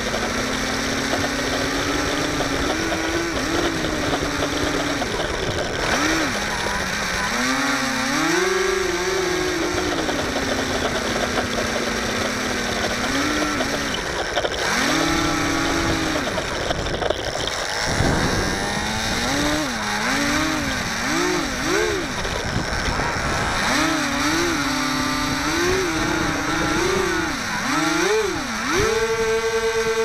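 Electric motor and propeller of a HobbyZone Firebird Delta Ray RC plane whirring on the ground, held steady at first and then throttled up and down in many short swells, the last few higher. Wind noise rushes on the plane-mounted camera's microphone throughout.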